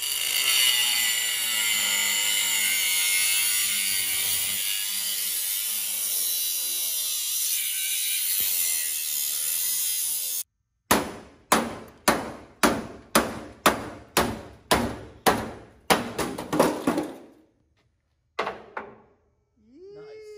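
Cordless angle grinder cutting through a seized steel mud-flap bracket bolt, a steady high-pitched grind. It stops abruptly about ten seconds in, followed by about a dozen hammer blows on steel, roughly two a second.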